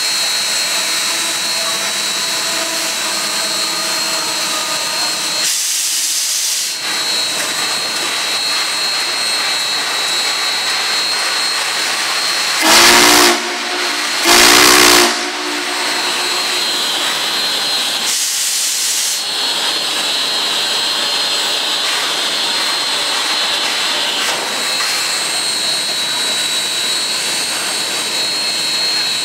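Union Pacific 844, a 4-8-4 steam locomotive, standing and hissing steam steadily. About halfway through its steam whistle gives two short, loud blasts. Two brief louder rushes of steam hiss come before and after the whistle.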